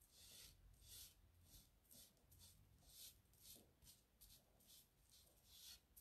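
Faint, rhythmic scrubbing of a foam sponge brush working water-based paint along the edge of a sign, about two strokes a second.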